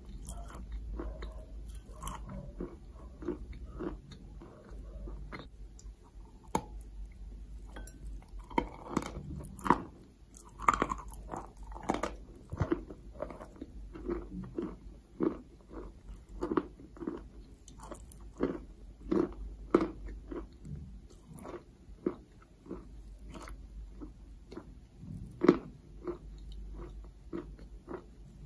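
A lump of white chalk being bitten and chewed close to the microphone: repeated short, sharp crunches, thickest through the middle stretch, with one loud crunch near the end.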